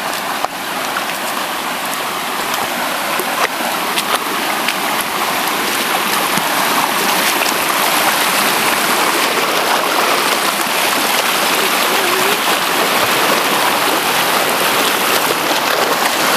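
A rocky creek rushing over stones, a steady hiss of flowing water that grows somewhat louder over the first half.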